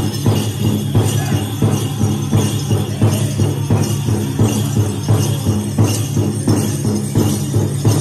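Powwow drum group singing in unison over a steady beat on a large shared drum, with the jingle of dancers' bells mixed in.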